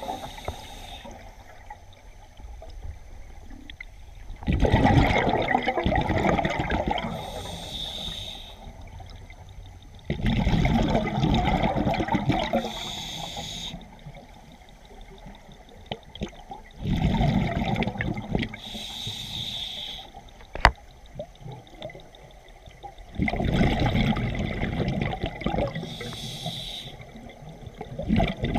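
Scuba diver breathing through a regulator underwater: four long rushes of exhaled bubbles, each about three seconds, coming about every six seconds with quieter stretches between. A single sharp click a little after the middle.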